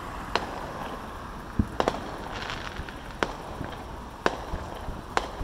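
Fireworks shells bursting in the distance: a string of about seven sharp bangs, roughly one a second, with one deeper thump among them, over steady street traffic noise.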